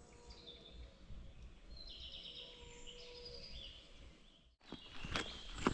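Birds singing faintly in the woods over a quiet outdoor background. Near the end it cuts to a run of footsteps on a gravel track.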